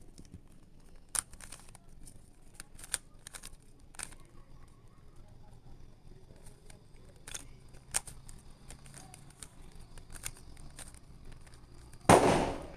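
Scattered sharp clicks of plastic puzzle pieces being turned on a tetrahedral twisty puzzle. Near the end comes a short, loud burst of noise, the loudest sound here.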